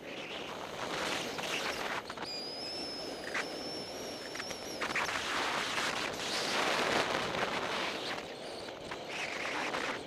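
Skis scraping and carving on groomed snow, the hiss swelling and fading with each turn, with wind rushing over the microphone. A thin high whistle sounds for a couple of seconds about two seconds in.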